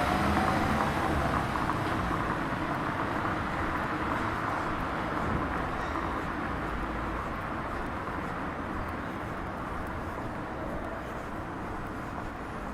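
A motor vehicle passing on the street, its engine and road noise fading steadily as it moves away.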